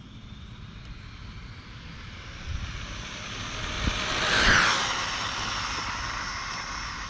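Brushless electric motor and drivetrain of a Traxxas Rustler VXL 2WD RC car whining at speed as the car runs toward and past. It grows louder to a peak about four and a half seconds in, then fades, with a few light thumps from the car along the way.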